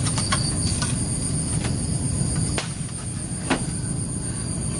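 Insects chirping in a steady high-pitched chorus over a steady low rumble, with a few sharp clicks.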